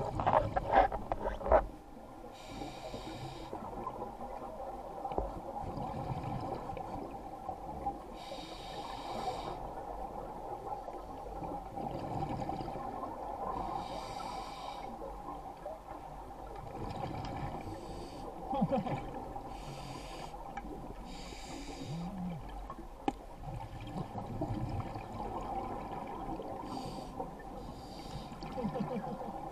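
Scuba diver breathing through a regulator underwater: a hiss of air through the demand valve and a gurgling rush of exhaled bubbles, repeating every few seconds. The loudest burst of bubbles comes in the first second or so.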